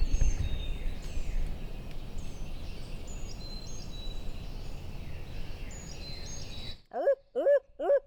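Songbirds singing, repeated short falling whistles, over a low rumble of wind on the phone's microphone. Near the end, after a cut, three short loud hooting notes, the start of an owl's call.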